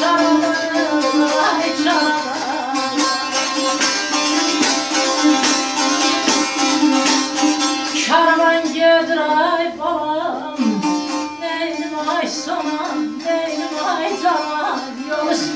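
Two Azerbaijani saz lutes played together in an ashiq instrumental passage. A quick plucked melody with bending notes runs over a steady drone note.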